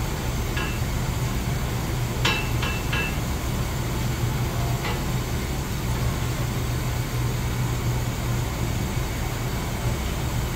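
Steady low hum and rumble of boiler-room equipment running, with a few light metallic clinks, three in quick succession a little after two seconds, as a black iron pipe is turned by hand into a threaded elbow.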